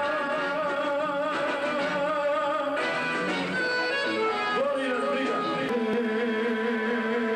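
Live band music with electric guitar and a man singing into a microphone, holding long notes with a wide vibrato. The music changes about three seconds in.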